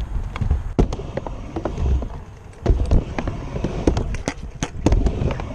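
Scooter wheels rolling over skatepark ramps with a steady low rumble, broken by many sharp clacks and knocks from the deck and wheels hitting the surface. The heaviest knocks come about three seconds in and again near the end.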